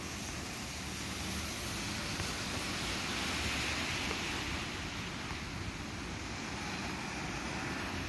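Steady hiss of rain and tyres on a wet road, swelling a little about three to four seconds in.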